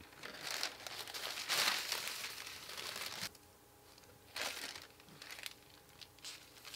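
Thin sewing-pattern paper rustling and crinkling as the sheets are handled and shuffled aside. It is busiest for the first three seconds, then there are a few short lighter rustles.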